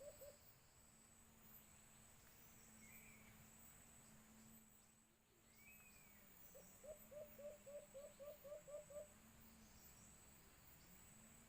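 White-eared brown dove calling faintly: a run of about ten short, low hooting notes, about four a second, starting a little past halfway through. Insects trill steadily in the background, and a brief higher bird chirp comes twice.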